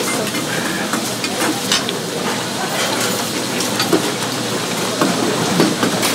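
Restaurant kitchen bustle: a steady background noise with scattered clinks and knocks of dishes and utensils.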